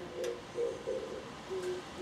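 Oriental turtle dove singing its low cooing song: hoarse coos alternating with a lower, plainer coo, the phrase repeating.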